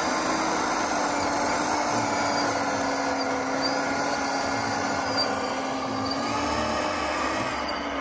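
Small electric motor of a radio-controlled construction model whining steadily, its pitch wavering slightly, over a busy mechanical background.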